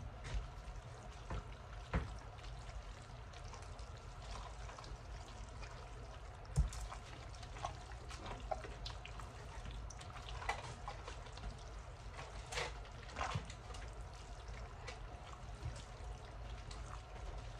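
Wet stirring sounds of spaghetti, chicken and creamy sauce being mixed in a stainless steel bowl, with scattered sharp knocks of the utensil against the bowl, the loudest about six and a half seconds in. A steady low hum runs underneath.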